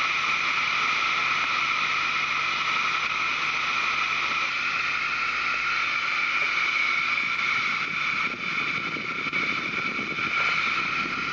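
Steady whining hiss of a steam-raising blower fed by a hose into the chimney of a 5-inch gauge B1 locomotive, drawing up the coal fire while the engine is being lit up.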